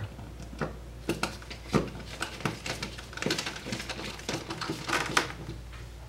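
Hand screwdriver turning the metal mounting screw of a Lutron Maestro dimmer into the electrical box: a run of irregular small clicks and scrapes, with a few sharper clicks.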